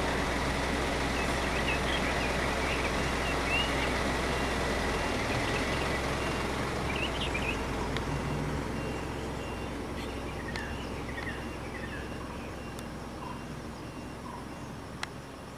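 A vehicle engine idling with a steady low hum that slowly fades, while birds chirp. A single short click comes near the end.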